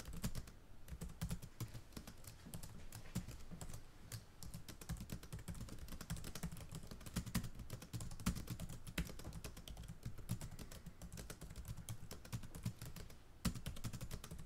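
Typing on a computer keyboard: a quick, uneven run of key clicks with brief pauses between bursts.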